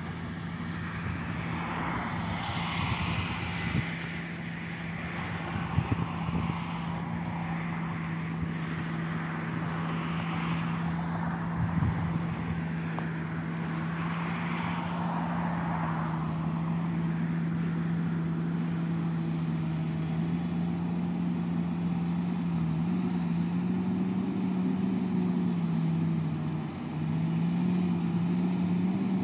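Distant John Deere 8335R tractor's six-cylinder diesel engine droning steadily under load as it pulls a plough, growing slowly louder as it approaches. Its pitch wavers up and down a few times near the end.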